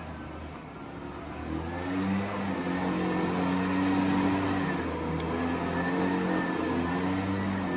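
Lawn mower engine running, its pitch wavering as it works, growing louder about one and a half seconds in.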